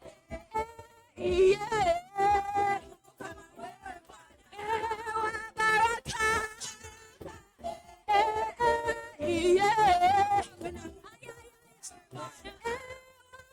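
Praise and worship singing: a voice sings drawn-out, wavering notes in phrases with short breaths between them.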